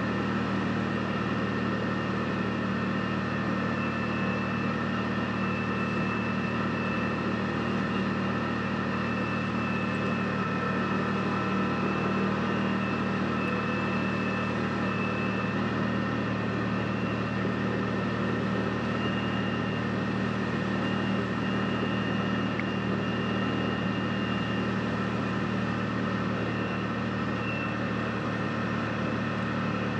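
Side-by-side UTV engine running steadily at an even pitch, with a dip in engine note right at the end.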